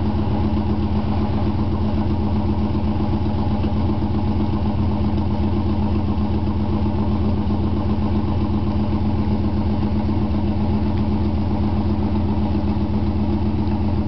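Stock 350 V8 of a 1997 Pontiac Trans Am running loud and steady at held revs during a burnout, spinning the rear tyres in smoke.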